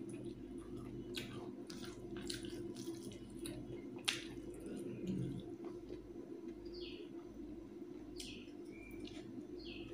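Fingers mixing rice with thin chicken curry in a steel plate: soft wet squishing and light clicks against the metal, the sharpest click about four seconds in. Two short high chirps come in the second half.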